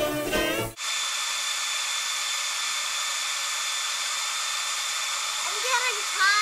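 Fiddle music cuts off under a second in, then a handheld hair dryer runs steadily with a faint whine. It is warming the VW's engine control unit, whose bad solder joint keeps the car from starting when cold.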